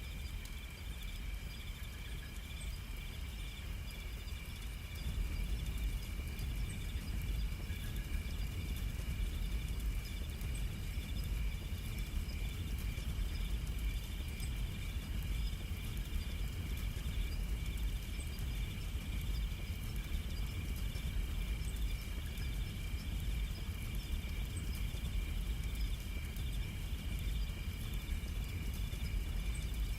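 Insects trilling steadily in a high, even chorus, over a low rumble that grows louder about five seconds in.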